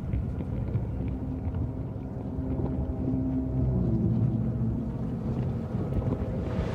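A low, steady rumbling drone with faint held tones, swelling a little in the middle: dark cave ambience from a film soundtrack.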